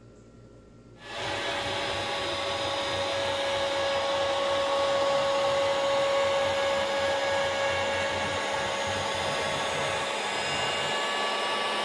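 Router spindle of a small 3040 CNC machine running at speed and cutting circles into a wood board: a steady whine over a hiss, coming in about a second in.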